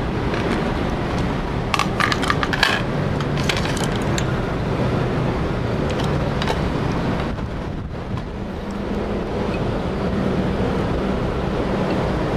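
Steady rushing background noise with a low hum, and a quick run of clicks and rattles about two seconds in as a computer motherboard is handled and set down on a workbench.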